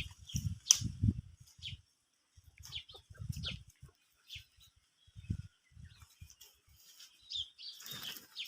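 Small birds chirping repeatedly in short high calls, with a few dull low thuds, strongest in the first second or so.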